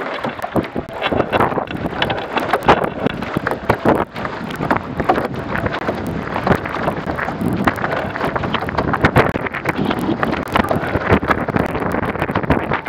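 Wind buffeting an action camera's microphone on an A-Class catamaran sailing at about ten knots, over water rushing and slapping irregularly against the hull.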